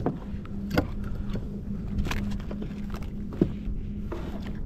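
Steady low rumble of wind and water around a kayak on the ocean, with a faint steady hum and a few sharp knocks and clicks.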